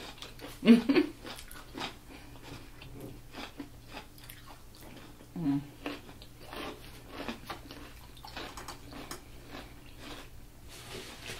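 Close-miked chewing and biting of sausage, rice and raw vegetables: wet mouth smacks and small crunches. There is a short hum of approval about a second in and another around five and a half seconds.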